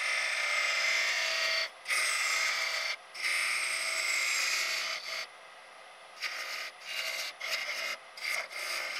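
Turning scraper cutting into a hardwood blank spinning on a lathe, widening the drilled centre hole to form a shoulder for the grinder mechanism. It scrapes in a few long passes for the first five seconds or so, then in shorter, quicker touches.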